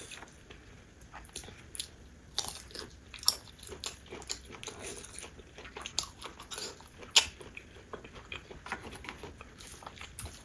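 Close-miked eating sounds: a person biting and chewing food, a string of short clicks and crunches at irregular intervals.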